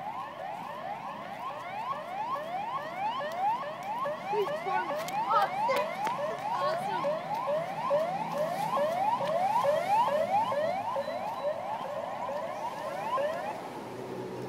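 Emergency siren sounding in a fast yelp: rising sweeps repeating about three times a second, without a break.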